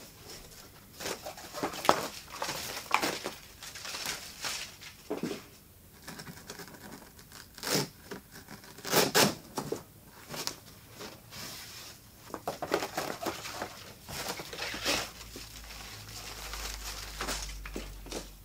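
Handling noise from a large cardboard speaker box: its straps being pulled loose, cardboard rustling and scraping, and irregular knocks and scuffs. A low rumble comes in over the last few seconds.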